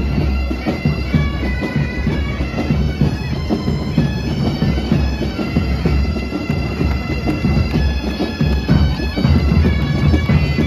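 Great Highland bagpipes of a marching military pipe band playing a tune, the chanters' melody moving over steady drones.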